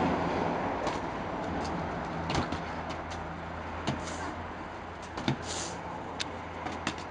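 Steady low background hum with scattered light taps and knocks.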